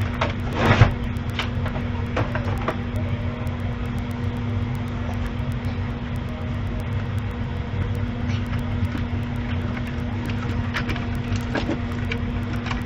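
Steady low machine hum with one constant tone. A brief louder rustle about a second in, and a few light clicks and knocks.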